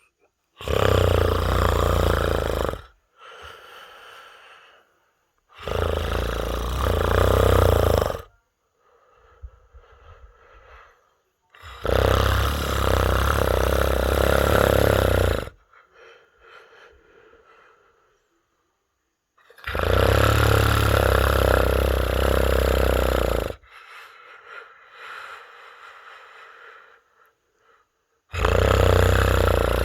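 A person snoring loudly: five long, rattling snores come every six to eight seconds, each lasting about three seconds. Softer, fainter breaths fill the gaps between them.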